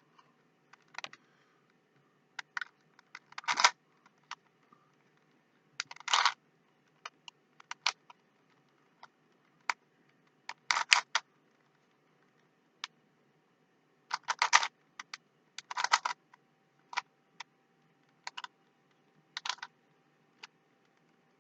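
Plastic Rubik's Cube being twisted by hand: irregular clicks and short clattering runs of turns, with pauses of a second or more between them.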